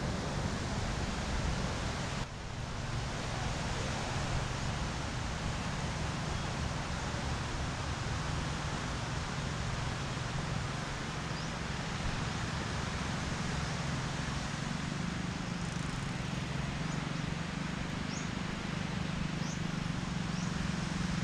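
Outdoor seaside ambience: a steady hiss of wind and distant surf with a low steady hum underneath, dipping briefly about two seconds in, and a few faint high chirps later on.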